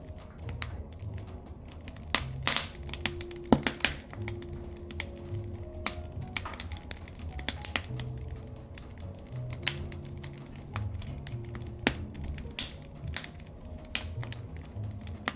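Firewood burning: irregular sharp crackles and pops from the burning wood, some much louder than others, over a low steady rumble of the fire.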